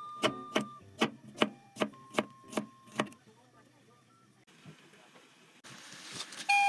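Kitchen knife chopping on a cutting board: about eight even strokes, a little over two a second, stopping about three seconds in.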